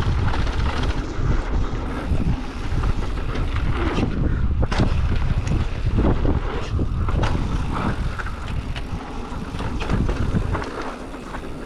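Wind buffeting the microphone on a fast mountain-bike descent, a heavy low rumble with tyre noise on dirt and scattered sharp clicks and rattles from the bike.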